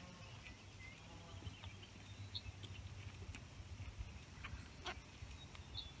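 Grazing sheep tearing and chewing grass: soft irregular snaps and crunches, with small birds chirping faintly in the background.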